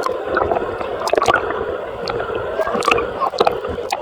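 Wave-pool water sloshing and gurgling close to the microphone, with several sharp splashes.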